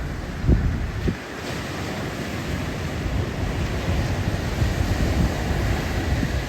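Heavy ocean surf breaking and washing in a steady rush, with wind buffeting the microphone in two low thumps about half a second and a second in.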